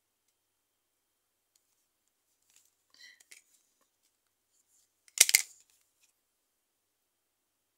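A plastic-handled modelling tool set down on a hard board: a short clatter of sharp clicks about five seconds in, after a few faint light clicks of handling a couple of seconds earlier.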